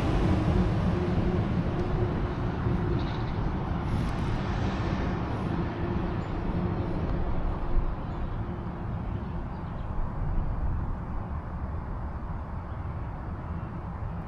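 Low motor-vehicle engine rumble with a faint steady hum, loudest at the start and fading gradually as it recedes.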